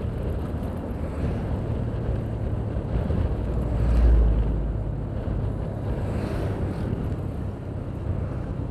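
Automatic scooter's engine and CVT drive running while riding, with wind buffeting the microphone and a louder low gust about four seconds in. The rider finds it pulls weakly since its CVT rollers were replaced, though the engine still runs strongly.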